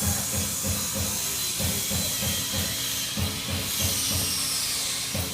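Machinery running with a steady low thump about three times a second under a constant hiss.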